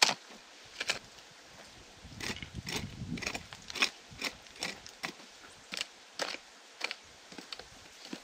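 A short-handled hoe chopping into hard clay soil, a sharp strike about every half second, with scraping and crumbling of loosened earth between strokes.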